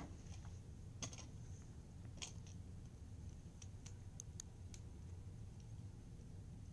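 Faint scattered clicks and ticks of a small plastic and die-cast toy truck and its parts being handled, a couple of sharper clicks in the first few seconds, over a low steady hum.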